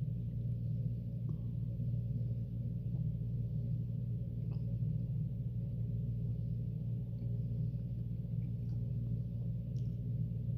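A steady low hum with several even overtones, unchanging throughout, and a few faint short clicks over it.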